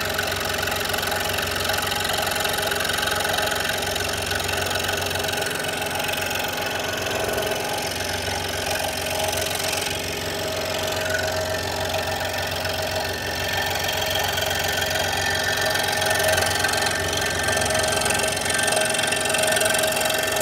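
Scroll saw running steadily, its blade stroking up and down as it cuts a curve in a thin wooden board fed slowly by hand.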